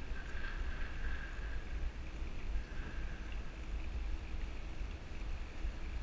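Wind buffeting the microphone of a bicycle-mounted GoPro camera while riding, a steady low rumble with a faint hiss over it.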